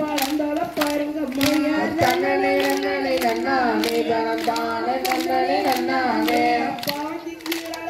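Women's voices singing a kummi folk song in Tamil, with sharp hand claps from the kummi dancers keeping time at about two a second. The singing drops away briefly near the end.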